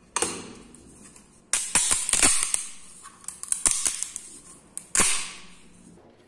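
Sharp cracking and snapping as a thin green printed layer is peeled off the base of a freshly 3D-printed plastic traffic cone, in several bursts, the longest starting about a second and a half in.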